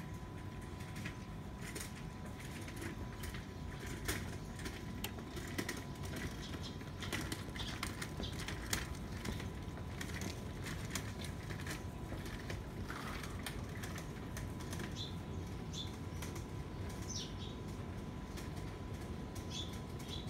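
Kitten eating wet cat food: a run of quick, wet clicks and smacks from its chewing and licking, busiest in the first half.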